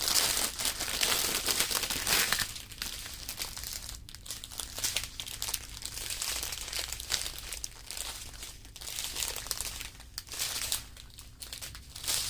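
Plastic packaging crinkling as small bags of diamond painting drills are handled, loudest in the first couple of seconds, then on and off more quietly.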